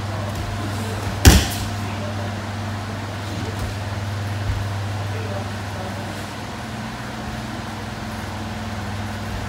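A judoka thrown with a hip throw (tsurikomi-goshi) lands on the tatami mats with one loud, sharp slap of a breakfall about a second in. A few faint thumps follow over a steady low hum.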